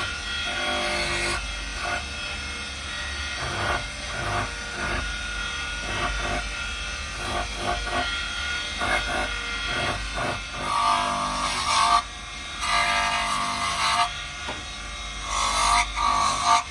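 Small abrasive disc on a motor-driven spindle grinding and sanding a wooden carving, a scratchy rubbing that keeps breaking off and starting again as the wood is pressed to it and pulled away.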